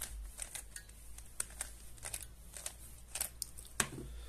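Plastic Penrose 3x3 puzzle cube being turned by hand: irregular clicks and snaps as its layers twist and lock into place, with one louder snap near the end.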